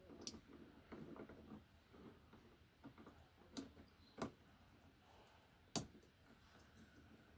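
Faint, scattered sharp clicks and light rustling from handling wires and plastic lever connectors, with the loudest click about three-quarters of the way through.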